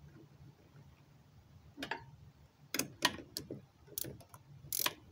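Sharp metallic clicks, about seven in an uneven run over the last three seconds, from a socket wrench tightening the nut on the winch's red power-cable terminal.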